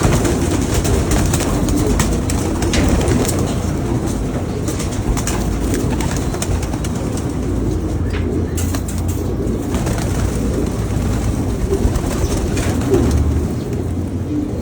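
Pigeons cooing steadily, with scattered sharp clicks and taps.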